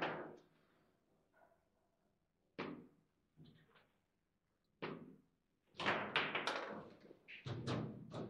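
Table football in play: sharp knocks and thuds of the ball and the rods on the table. A few single knocks come in the first half, then quick runs of knocks from about six seconds in.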